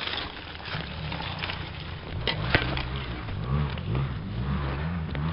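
Mountain bike rattling and knocking on a rough, rocky dirt-trail descent, with sharp clicks of tyres and frame striking stones. From about two seconds in, a low drone that rises and falls in pitch joins the rattle.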